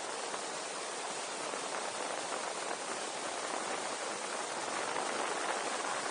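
Steady rushing hiss of water spray and wake peeling off the hull of an aluminum boat running at speed.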